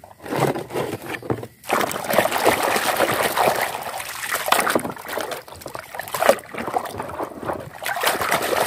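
Muddy water splashing and sloshing in a plastic basin as a toy is swished and scrubbed in it by hand, with a few brief wet sounds in the first second or so before the splashing runs on continuously.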